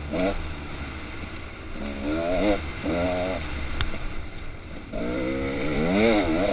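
Dirt bike engine revving up and down under load on a steep rocky climb, its pitch rising and falling with the throttle and dropping out briefly between pulls. Steady wind rumble on the microphone underneath, with a single sharp knock about four seconds in.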